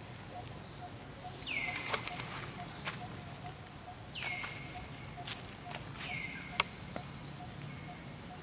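An animal calling three times, about two seconds apart: each call is a whistle that drops quickly in pitch and then holds a steady note. Scattered sharp clicks, one loud click about two-thirds of the way in, and a faint steady ticking run underneath.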